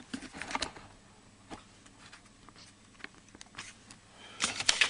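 Faint, scattered clicks and taps of handling, with a cluster of louder clicks and a short rustle near the end.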